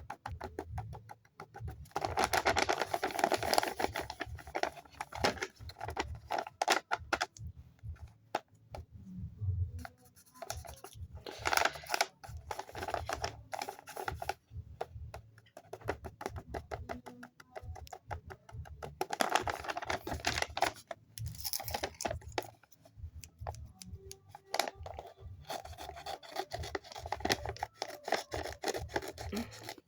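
Paper crinkling, rubbing and scratching as a handmade paper blind bag is handled and opened, with many small taps and clicks and several longer bursts of rustling.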